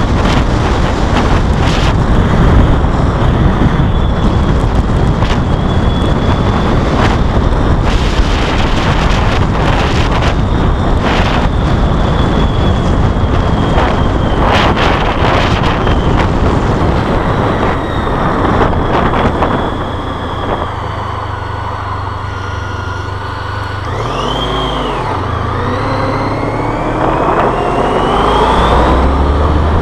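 Motorcycle ride with heavy wind buffeting on the microphone. About two-thirds through, the wind drops as the bike slows, leaving its engine running at low revs, then the engine note rises as it speeds up near the end.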